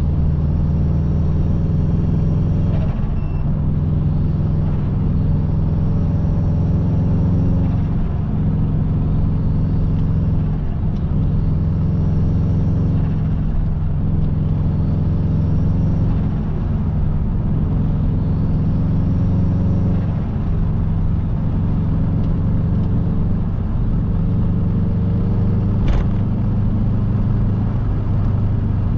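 Subaru Impreza WRX's turbocharged flat-four engine driving along, its pitch climbing for a few seconds then dropping at each gear change, over and over. A single sharp click near the end.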